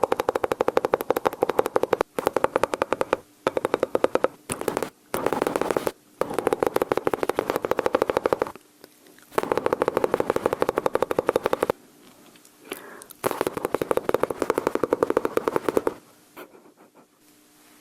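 Mouth sounds imitating machine-gun fire: fast rattling bursts, each about one to two seconds long, repeated about seven times with short pauses, trailing off into faint sounds near the end.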